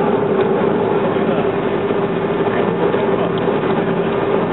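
Cabin noise of a Boeing 737-300 taxiing: its CFM56 jet engines running as a steady hum with one steady mid-pitched tone over a low rumble.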